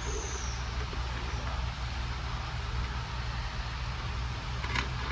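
Steady low hum of shop machinery running, with one sharp click near the end as the steel parts of the transmission shift top are handled.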